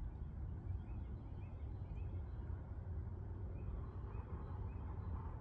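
Steady low rumble of wind on the microphone, with a faint run of short, evenly spaced chirps from a distant bird.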